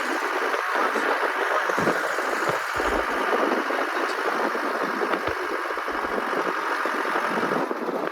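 A vehicle engine running steadily under a dense wash of road noise, easing off near the end.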